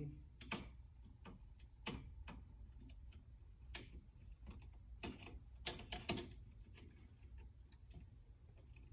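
Faint, irregular clicks and taps of hands working at a thermostat being installed, with a few louder clicks near the middle.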